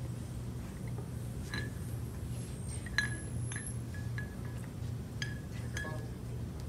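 Small glass sand containers clinking against a glass vase as sand is poured: a string of light, sharp clinks with a brief ring, the loudest about three seconds in.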